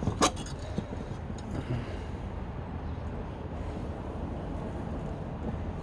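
Steady low background rumble, with a sharp click about a quarter second in and a few faint taps as the loose parts of a 3D printer's bed are handled.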